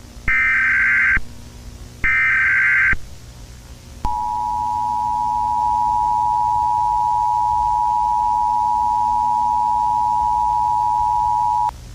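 Emergency Alert System tones: two roughly one-second bursts of the buzzy, screeching digital header data, then about eight seconds of the steady two-tone attention signal, which cuts off sharply near the end.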